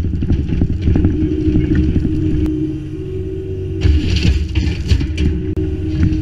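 Kubota U25-3 mini excavator's diesel engine running steadily while its bucket scrapes and spreads crushed Type 1 stone, with crunching of stones throughout. About four seconds in, a brief rush and rattle as stone pours out of the bucket.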